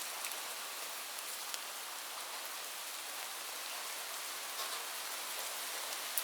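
Light rain falling steadily: an even hiss of many small drops, with now and then a single sharper drop tick, one of them near the end.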